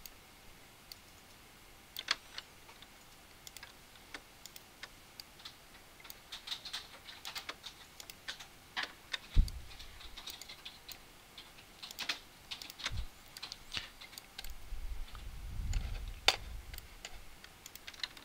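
Irregular clicking of a computer keyboard and mouse, with one dull thump about halfway through and a brief low rumble later on.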